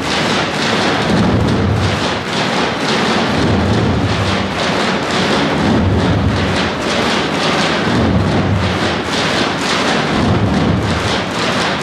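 A group of tapans, large Macedonian double-headed bass drums, played together in a dense, driving rhythm: deep booming mallet strokes with sharper, higher stick strokes between them.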